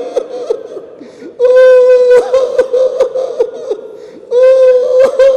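A man weeping aloud. Two long, wavering cries come about a second and a half in and again near the end, with broken sobs between them.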